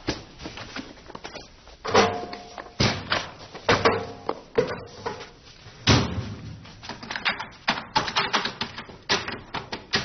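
A run of irregular knocks, clicks and thumps, at times several a second, with a few short pitched notes about 2 and 4 seconds in.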